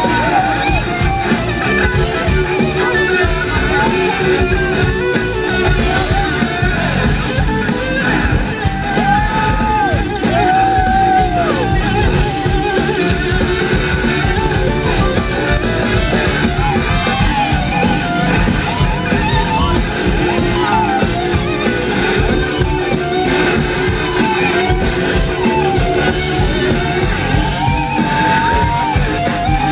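A live blues-rock band playing an instrumental jam. A lead electric guitar plays long gliding notes that rise and fall in arcs, over drums, bass and a held chord.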